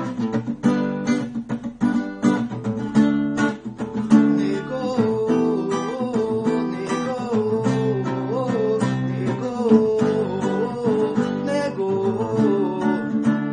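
Acoustic guitar strummed in chords, with a voice singing a wavering melody over it from about four seconds in.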